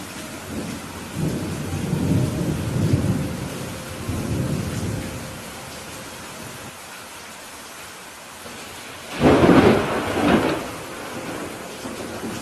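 Steady rain on a roof with thunder. A low rolling rumble runs from about a second in to about five seconds. A louder, sharper thunderclap comes near the nine-second mark.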